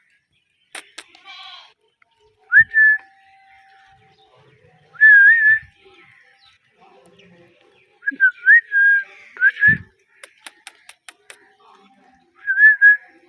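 Ringneck parakeet giving short whistled chirps that bend up and down in pitch, in several separate bursts, some of them doubled or in quick runs. A quick series of sharp clicks comes about two thirds of the way through.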